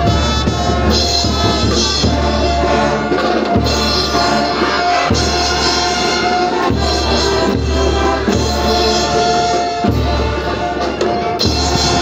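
Student marching band playing: brass (trumpets, saxophones, tubas) holding a loud, steady tune over a bass line, with bass drum and drum strokes keeping the beat.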